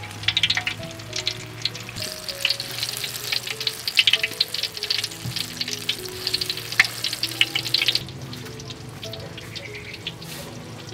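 Battered banana slices frying in hot oil in a wok: a dense crackling sizzle that thins out sharply about eight seconds in. Soft background music plays underneath.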